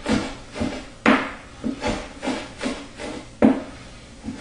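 Knife chopping fresh parsley on a cutting board: a run of uneven knocks, about two a second, as the blade strikes the board.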